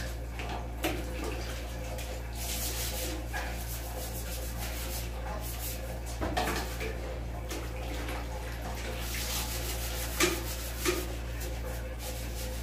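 A toilet bowl being scrubbed by hand with a scrubber: irregular rasping strokes mixed with water sloshing, and a few sharp knocks, two of them close together near the end. A steady low hum runs underneath.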